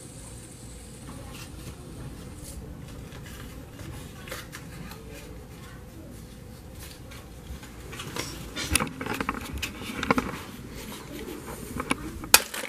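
Card-and-plastic fidget spinner packaging being handled and opened: faint rustling, then from about eight seconds in a busier run of crinkles and sharp plastic clicks, with one loud click near the end.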